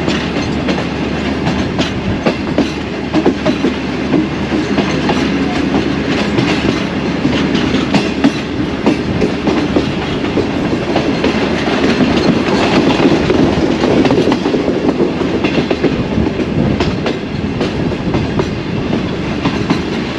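Track sound of a moving passenger train heard on board its last coach: wheels clattering irregularly over rail joints above a steady rumble, a little louder about twelve seconds in.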